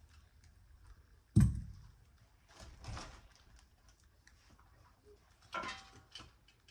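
Handling noises from assembling a bicycle: a loud knock about a second and a half in, a short scrape, then a clatter of parts with a brief metallic ring near the end.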